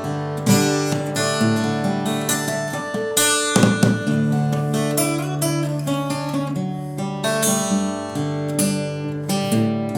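Acoustic guitar strummed and picked in an instrumental passage, chords ringing one into the next, with a quick flurry of strokes about three and a half seconds in.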